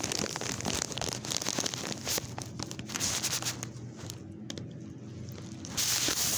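Sandwich paper wrapper crinkling and tearing as it is unwrapped by hand close to the microphone, with irregular crackles and clicks and a louder rustling burst near the end.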